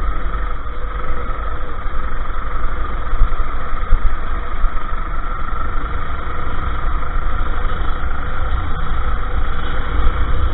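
Go-kart engine running steadily while racing, heard from the kart itself, with an even engine note over a heavy low rumble.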